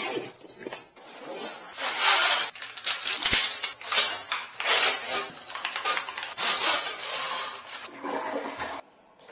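Irregular clattering and rustling handling noise, with a sharp knock about three seconds in.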